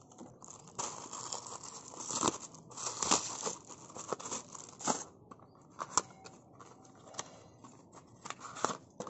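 Firework packaging being torn open by hand: plastic wrap and paper crinkling, with sharp rips at irregular moments, the loudest about two, three, five and six seconds in.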